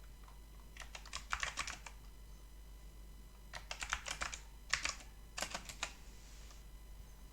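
Computer keyboard typing in four short bursts of quick keystrokes with pauses between them.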